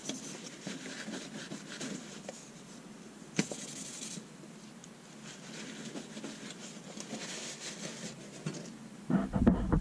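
Sandpaper scratching back and forth by hand along the steel of a Damascus san mai bowie blade, with one sharp click about a third of the way in. Near the end a louder, lower rumbling noise starts.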